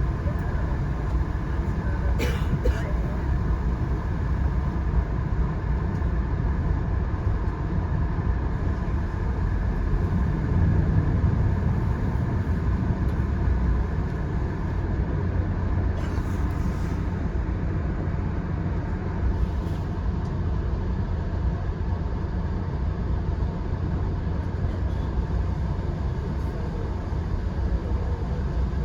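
Steady low rumble of a passenger train running, heard from on board, with a few brief clicks now and then.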